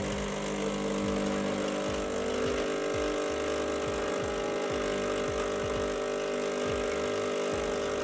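Rancilio Silvia espresso machine's vibratory pump running with a steady hum while it pushes water through the coffee puck to pull an espresso shot.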